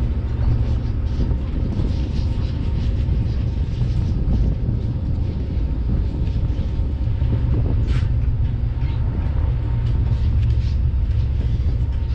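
The party boat's engines drone steadily underway, a loud, even low rumble. A short high squeak cuts through about eight seconds in.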